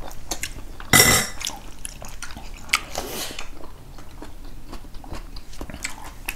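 Eating sounds: chewing and mouth noises over a meal of pork curry, with small clicks and two short louder noisy bursts, about a second in and about three seconds in.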